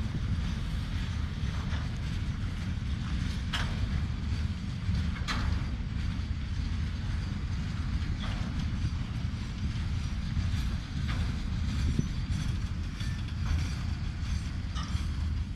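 Freight train hopper wagons rolling past: a steady low rumble of wheels on rail, with a few brief creaks and squeals from the wagons.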